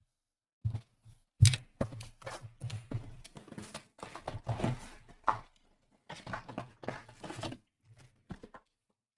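Trading-card packaging being handled and opened on a table: quick rustling and tearing with dull knocks and thumps, stopping and starting in irregular clusters.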